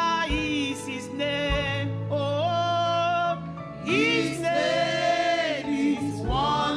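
A woman singing a slow gospel worship song into a microphone, in long held notes with vibrato and sliding pitch, over steady keyboard accompaniment with a few deep beats.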